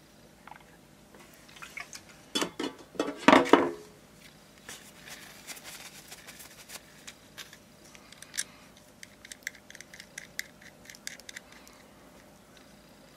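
Small metal knocks and clicks from handling a petrol lighter and a lighter-fluid can, loudest a couple of seconds in. Then a tissue rustles as the lighter is wiped, and a quick run of light clicks comes near the end.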